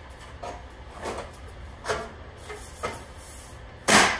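Steel replacement inner wheel-well panel being fitted into a Volkswagen Beetle's front wheel well: light scrapes and taps of the panel against the body, then a loud slap near the end as it is patted into place by hand.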